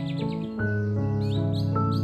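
Background music of long held chords that change about once a second, with bird chirps over it twice.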